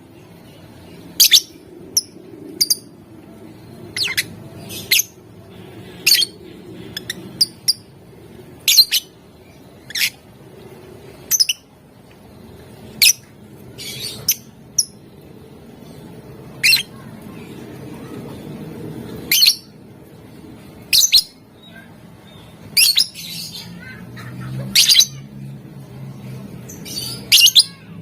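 Lovebird giving short, sharp, high-pitched squawking chirps, one at a time, about twenty of them spaced irregularly roughly a second apart.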